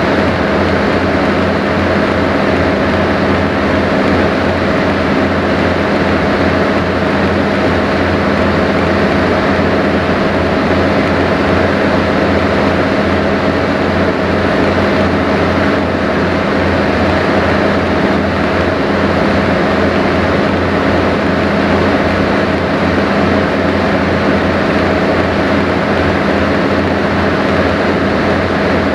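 Sightseeing cruise boat's engine running steadily, heard on board: a constant low hum with a few steady tones over a wash of water and wind noise.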